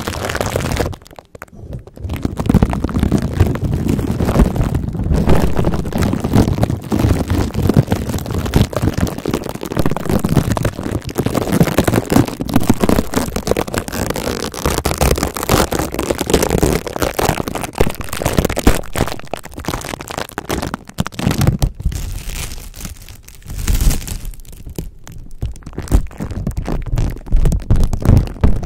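Plastic cling wrap crinkling and rustling right against a microphone grille, a dense, loud stream of close crackles, with a short gap about a second in.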